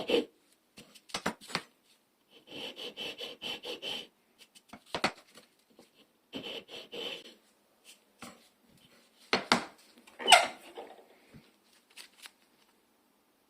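Plane maker's float cutting wood in two short runs of quick rasping strokes, about five a second, with separate knocks and taps in between; the loudest knock comes about ten seconds in.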